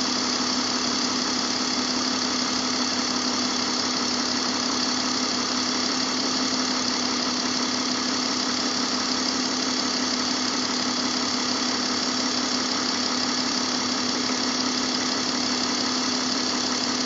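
BMW M54 inline-six engine idling steadily, with a constant hum and even hiss that do not change.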